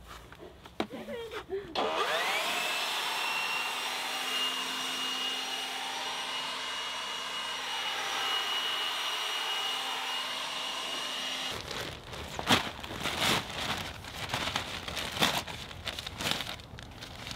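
DeWalt handheld leaf blower spinning up with a rising whine about two seconds in, running at a steady high pitch for about ten seconds, then switched off. Irregular scuffing and rustling follow.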